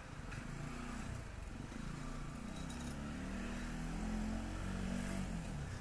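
Small motorcycle engine running at low road speed, its pitch stepping up and down with the throttle and growing slightly louder, over a steady low rumble.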